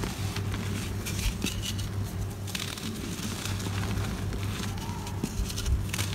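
Dry, sandy floor material crushed by hand, crunching and crackling in many small clicks as grit and powder pour out, over a steady low hum.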